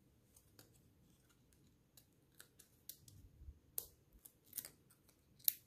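Faint paper handling: scattered small crinkles and sharp clicks as a small die-cut cardstock bow and its foam adhesive dots are worked by hand. They come more often in the second half, and the loudest is near the end.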